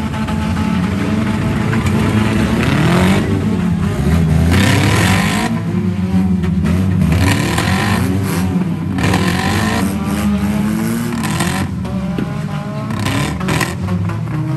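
Several banger-rally cars' engines revving hard at once, their pitches rising and falling and overlapping as the cars are driven and rammed in the arena, with two stretches of harsh noise about three seconds in and again around eight seconds.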